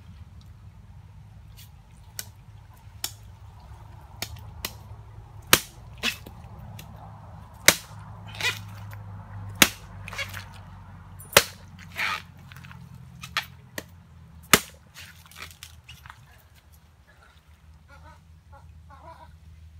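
Machete blade chopping into a nipa palm fruit cluster and its stalk: about fifteen sharp, irregular chops over some thirteen seconds, stopping a few seconds before the end.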